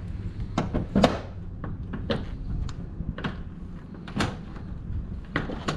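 Aftermarket carbon fiber hood on an Infiniti G35 sedan being lowered and pressed down onto its latch. It gives a series of sharp knocks and clunks, the loudest about a second in.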